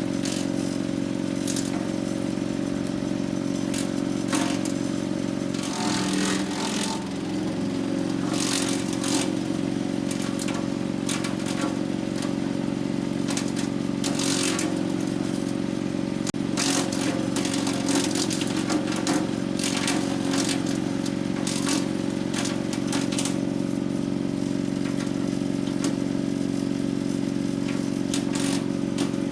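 DR wood chipper's gasoline engine running steadily while branches are fed through, with frequent sharp cracks and clatter as the wood is chipped. About six seconds in, the engine note dips and wavers briefly as it takes the load.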